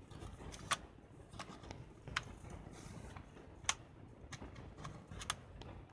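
Light, irregularly spaced plastic clicks and taps from a Canon Autoboy Epo compact film camera being handled as a film cassette is seated and the leader laid across the film gate, about eight clicks with two louder ones.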